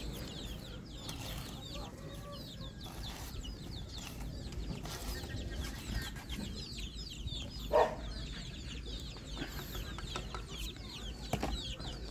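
Chickens: steady high-pitched peeping throughout, with one louder cluck about eight seconds in.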